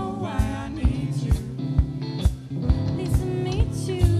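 Live jazz band playing: a drum kit keeping a steady beat under electric bass guitar, with a woman singing, her voice clearest about the first second.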